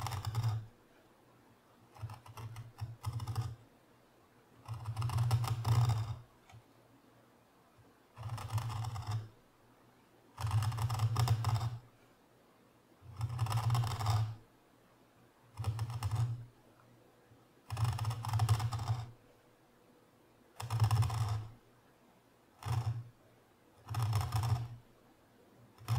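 A small hand carving tool cutting into walnut in a series of short push strokes, about a dozen cuts a second or two apart.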